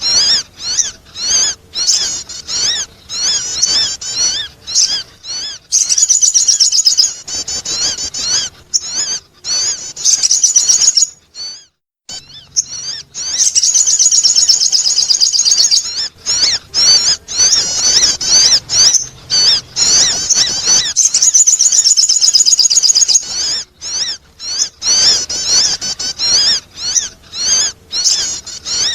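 Sogon bird song: fast, high-pitched twittering chirps in long, dense strings, with a short break about eleven seconds in. It is a lure recording meant to attract birds.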